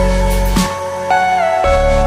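Background music: a soft melodic track with sustained notes over a deep bass that drops in pitch with each new note.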